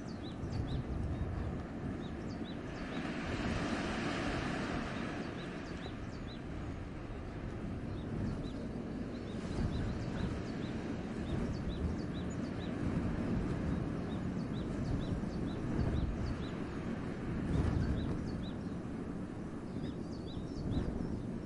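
Gusting wind in a forest, a steady rushing with a heavy low rumble and a stronger gust a few seconds in. Over it, a small bird calls a long run of short, high chirps.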